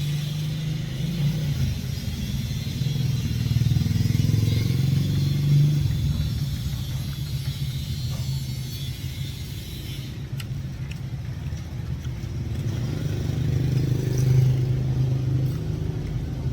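Street traffic: motor vehicles passing with a low engine rumble that swells and fades twice.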